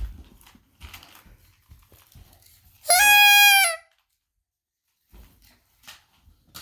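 A loud, bleat-like cry about three seconds in, held on one pitch for just under a second and dropping at the very end. Before it come soft rustling and small knocks of handling.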